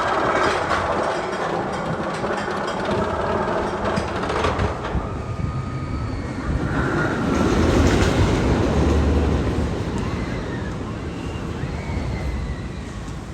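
Magnum XL 200 roller coaster train rumbling along the track, loud and steady, swelling about two-thirds of the way through and easing near the end, with faint whining tones over it in the second half.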